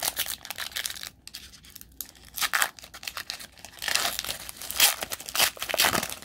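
Foil trading-card pack wrapper being torn open and crinkled by hand, in a series of short rips and rustles that are busiest in the last couple of seconds.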